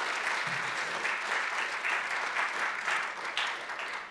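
An audience of about two hundred applauding steadily, a dense round of clapping.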